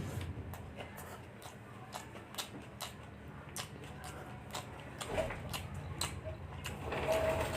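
A person eating chicken fried rice, chewing close to the microphone, with many short irregular mouth clicks and smacks.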